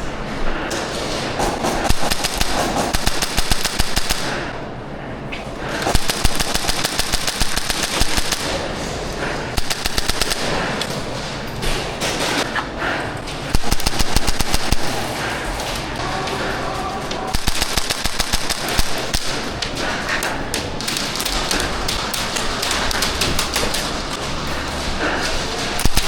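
Airsoft electric guns firing in rapid full-auto bursts at close range, with fast mechanical clicking strings and BB impacts, on and off throughout.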